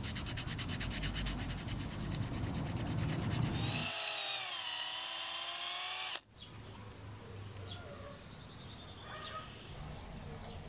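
Sandpaper rubbing a small wooden lure blank in rapid, even strokes. Then a cordless drill whines, its pitch dipping as the bit bites into the wood, and it cuts off suddenly.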